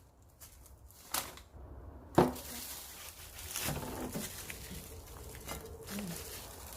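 Two sharp knocks, about a second apart, followed by faint handling noise.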